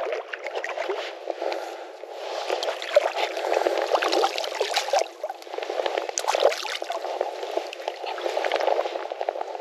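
Creek water rushing and babbling over a riffle, loud and uneven, swelling and easing every second or two.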